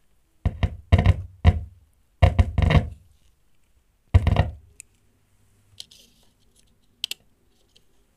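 Loudspeaker driven by a homemade 2SA1943/TIP41 transistor amplifier giving a run of loud thumps, about seven in the first four and a half seconds, as the power clip is tapped on and off the supply lead. A low hum sits under the thumps while it is connected.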